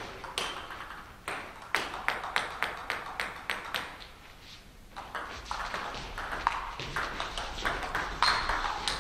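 Table tennis ball clicking off bats and table in quick, irregular knocks, with a short lull about four seconds in before the knocks pick up again.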